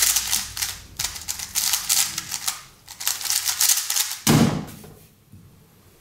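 Plastic 3x3 speedcube clicking and clacking rapidly as its layers are turned fast, then one sharp thump about four seconds in as the solve is stopped.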